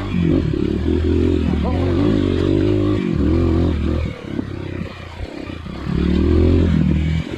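Dirt bike engine revving under throttle, its pitch rising and falling. The engine runs hard for about four seconds, drops back for a couple of seconds, then pulls hard again near the end.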